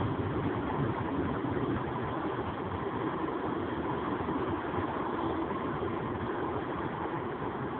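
Freight train passing, a steady rumble that eases slightly near the end.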